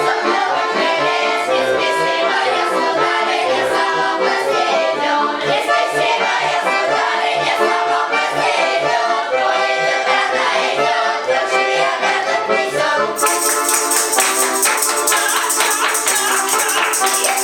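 Children's folk ensemble singing a Russian folk song to accordion accompaniment with a steady beat. About thirteen seconds in, a bright jingling tambourine joins and keeps going.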